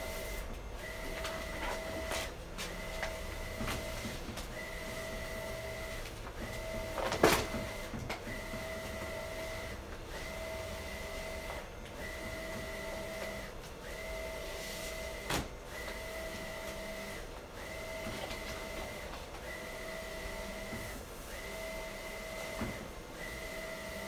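Wide-format inkjet printer running, its print-head carriage making passes about every two seconds: each pass a steady whine, then a brief pause. A few sharp knocks are heard too, the loudest about seven seconds in.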